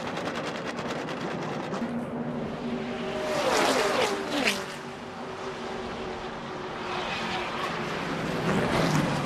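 NASCAR stock cars' V8 engines running at race speed, with cars passing close and dropping in pitch as they go by: a loud pass of several cars about three and a half seconds in, and another near the end.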